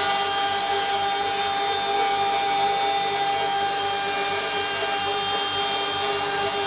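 Woodworking machinery running steadily, a continuous whine of several held tones over a hiss, with no cuts or changes in speed.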